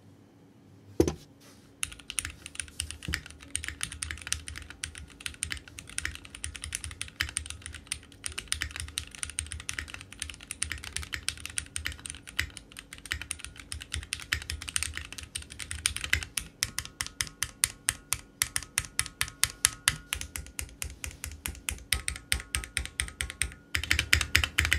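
Typing test on a Keychron Q1 all-aluminium mechanical keyboard: after one thump about a second in, rapid continuous keystrokes run on. The typing seems to have a slightly hollow sound and some rebound noise, which the reviewer lays to the aluminium case.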